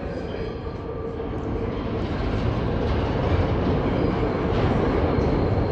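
R160B subway train with Alstom equipment running, its sound building over the first two or three seconds and then holding steady.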